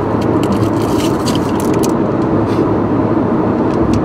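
Steady road and engine noise heard inside a moving car's cabin. About half a second to two and a half seconds in, there is a run of crinkling as a plastic packet of comic book bags is handled.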